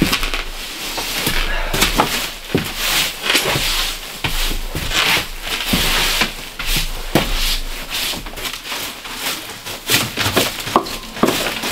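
Broom sweeping a wooden floor in short repeated strokes, bristles scratching over the boards and pushing snow and bark debris.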